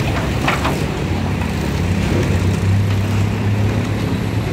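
Truck engine idling steadily, with a short clatter of debris about half a second in.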